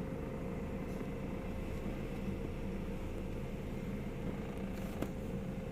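Car engine running steadily, a low even rumble with a faint steady hum over it.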